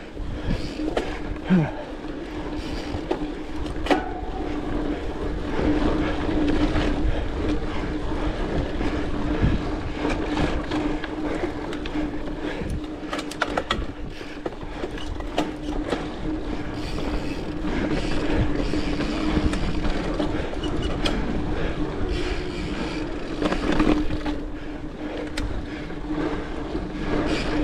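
Mountain bike riding over a dirt trail: continuous tyre rumble with the bike rattling and clacking sharply over bumps and small rocks, and a steady hum running underneath.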